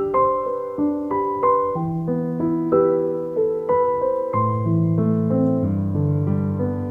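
Background piano music: a slow, gentle melody of single notes over sustained low chords.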